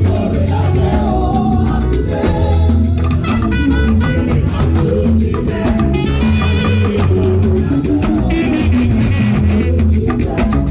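Upbeat music with a steady beat, heavy bass and percussion, with singing.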